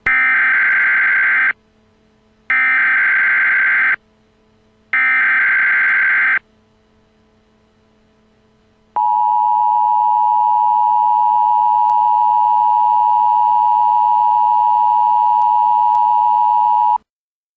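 Emergency alert broadcast opening: three short bursts of digital SAME header data tones, each about a second and a half, then a long steady single-pitch attention tone for about eight seconds that cuts off sharply. These signal the start of a flash flood warning.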